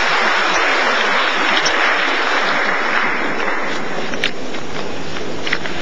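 Audience applauding, thinning out about three and a half seconds in, with a few single claps near the end.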